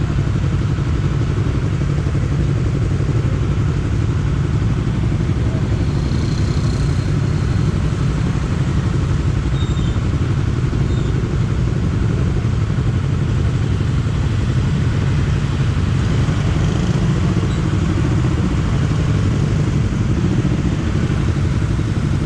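Honda CBR250RR parallel-twin motorcycle engine running steadily at an even engine speed, a dense low pulsing with no big revs.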